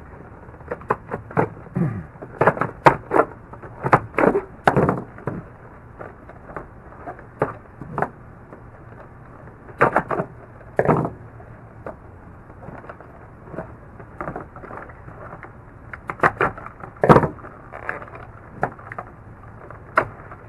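Hard plastic blister packaging being cut and pried open with a folding knife: irregular cracks, snaps and crinkles of stiff plastic, some in quick clusters.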